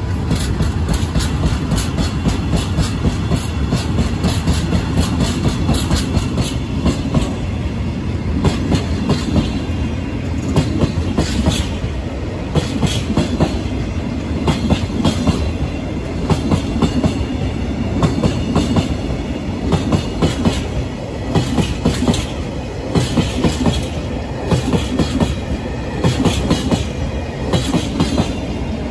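Freight train hauled by a JR Freight EH200 electric locomotive running past: a steady rumble with repeated clusters of clicks as the wagon wheels cross rail joints.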